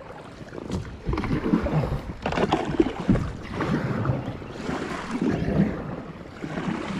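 Kayak paddle strokes dipping and splashing in shallow creek water, about one stroke a second.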